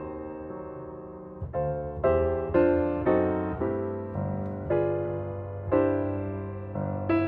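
Background piano music: slow chords struck one after another, each ringing and fading before the next.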